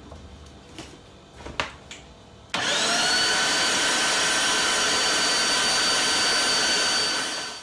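Kenwood Pro 1500 electric meat grinder switched on about two and a half seconds in: its motor whine rises as it spins up, then it runs steadily and loud while grinding raw chicken necks, gizzards and thigh meat, and it stops near the end. Before it starts there are a few light clicks of handling.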